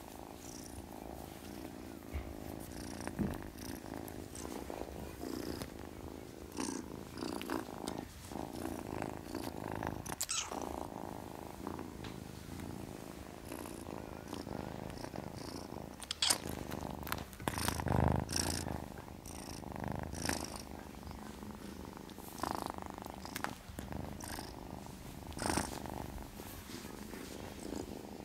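British shorthair kitten purring steadily while it dozes, with a few short louder sounds about two-thirds of the way through.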